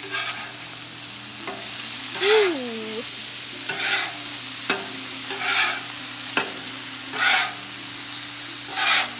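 Burger patties and hot dogs sizzling on a Blackstone flat-top griddle over a steady low hum. A metal spatula scrapes the griddle top about every second and a half, and there are two sharp clicks near the middle.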